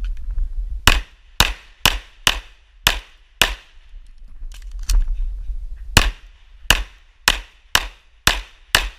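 Imbel MD1 9mm pistol fired in fast strings during an IPSC stage: six shots about half a second apart, a pause of about two seconds, then six more.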